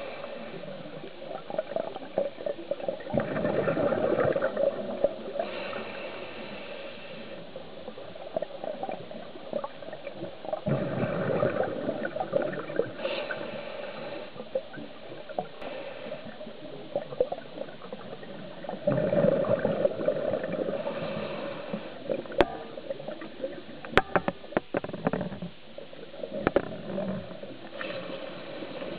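A scuba diver breathing through a regulator underwater: four bubbling exhalations about eight seconds apart, each followed by a short hiss of inhalation. A couple of sharp clicks come about two-thirds of the way through.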